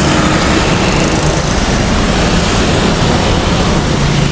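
Diesel bus engine running steadily as the bus pulls out of the terminal: a low drone with an even traffic hiss over it.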